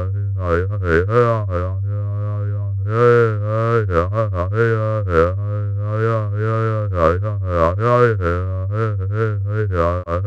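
Synthesized 'drunk robot' sound effect: a steady electronic buzzing drone at a fixed low pitch, with a wobbling filter that makes irregular wah-like, vowel-ish swoops about twice a second. It cuts out briefly just before the end.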